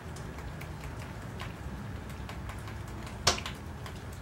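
Light irregular taps of a paintbrush being flicked to splatter watered-down orange acrylic paint, with one sharper tap a little over three seconds in, over a low steady background hum.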